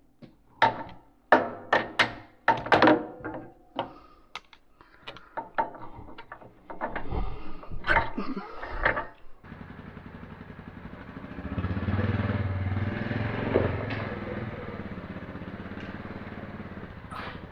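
Metal clanks and knocks of tools and parts while the cab of a Takeuchi TL12 track loader is unbolted. About halfway through, this changes abruptly to the loader's diesel engine running at a steady idle.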